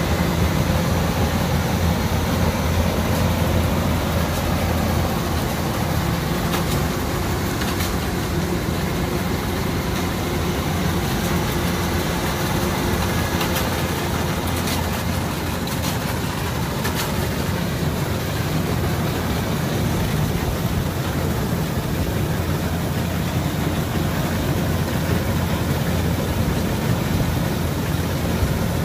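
Kubota DC-105X rice combine harvester running steadily as it harvests, its diesel engine a constant low hum, with a few light clicks and rattles in the middle.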